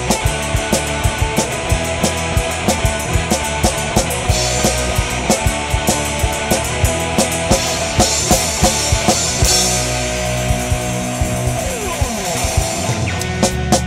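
Rock music with a steady, fast drum kit beat.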